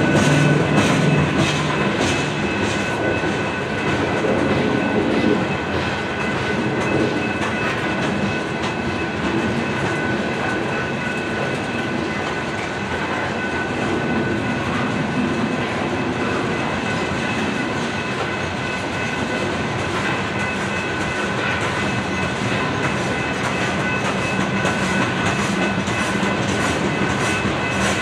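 Coal train of loaded-style aluminium coal gondolas rolling steadily past: continuous wheel-on-rail rumble with repeated clickety-clack of wheelsets over rail joints, clearest at the start and near the end. A thin steady high ringing from the wheels and rails runs underneath.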